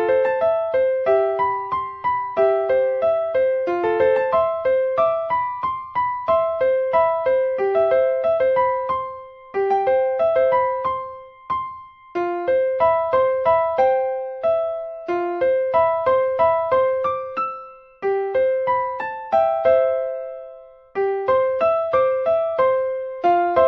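Solo piano playing a quick, lively melody of short struck notes over chords, with brief pauses in a few places.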